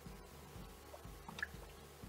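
Wooden spatula stirring thick meat stew in a large metal pot: faint wet squelching, with a few small blips about a second and a half in.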